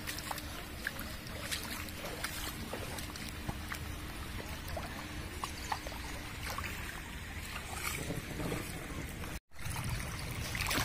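Muddy floodwater running across a dirt road after heavy rain: a steady wash of noise with scattered small splashes and trickles, briefly cutting out near the end.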